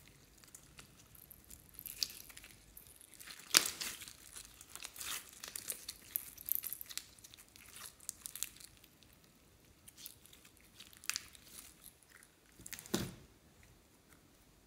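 Clear slime studded with plastic pearl beads being squeezed and stretched by hand: irregular soft crackles, sticky pops and squishes, with a heavier plop near the end as the slime is set back down in the tray.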